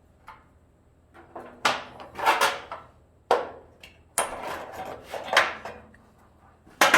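Irregular knocks, clatters and scrapes of tools and metal parts being handled and set down on a workbench, about half a dozen sharp hits with rattling in between.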